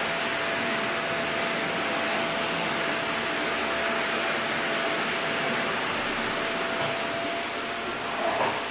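A motor-driven appliance running steadily: an even rushing noise with a faint steady hum.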